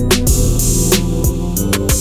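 Background music with a steady drum beat over held bass and instrument notes.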